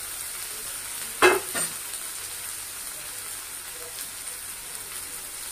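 Chopped onion, green chilli and ginger sizzling steadily in hot oil in a kadhai. About a second in there are two short clatters, the first loud.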